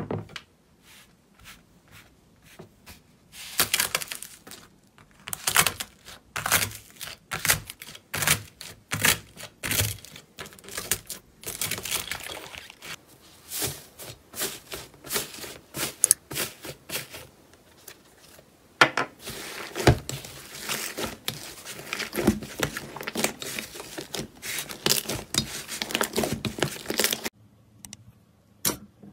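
Dried, crusted 'iceberg' slime crackling and crunching as fingers press and break its crust: dense runs of sharp crackles, with a short pause near the end.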